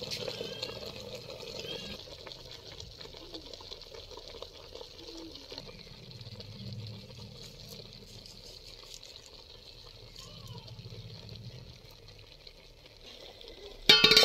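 Quiet outdoor background with faint voices, then near the end a sudden loud metallic clatter as a metal plate is handled to cover the cooking pot.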